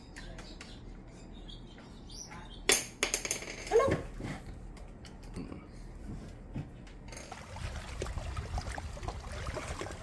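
A few sharp taps and clicks on a hard tabletop, bunched about three to four seconds in, with a brief voice among them. From about seven seconds in, a steady low beach ambience of small waves washing on the shore.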